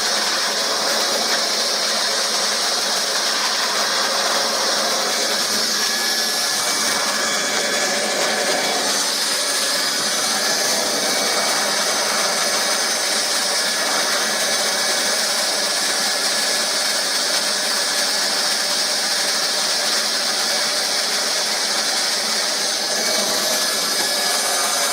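Plastic welder running steadily through a weld seam: a continuous hiss with a faint steady whine and no breaks.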